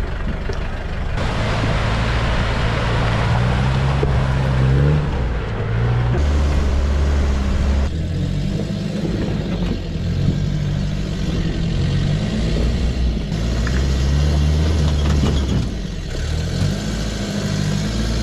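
A lifted 4WD pickup's engine revving up and falling back again and again as it crawls over large river rocks.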